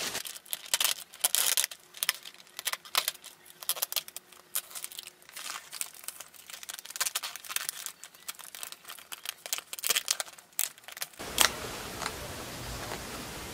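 Plastic carrier bag and plastic takeout containers crinkling and rustling as food is unpacked and the lids opened, with irregular crackles and light taps as containers are set down. About eleven seconds in comes a single knock, after which only a steady hiss remains.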